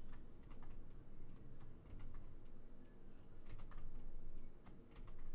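Computer keyboard keys and a mouse clicking: about ten light clicks at irregular spacing while the G key is pressed repeatedly to reapply a command, over a low background hum.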